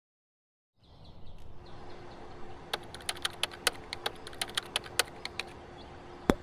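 After a moment of silence, steady room noise with a faint hum, then a quick, irregular run of small sharp clicks for a few seconds and one louder click near the end.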